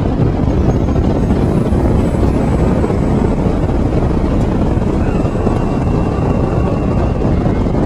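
Road noise and wind rushing and buffeting on the microphone from a vehicle driving along, a loud, steady rumble.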